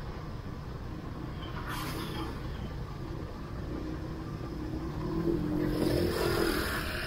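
Motor scooter engine running steadily at riding speed over a low road rumble. About five seconds in, an engine grows louder and more pitched for a second and a half, then eases off.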